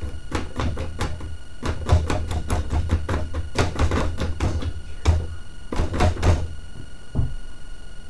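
A homemade wind generator's toy pinwheel rotor spun by a finger: a quick, irregular run of slaps and flutters as the finger keeps flicking the thin plastic blades, stopping at about six seconds, with one more flick a second later.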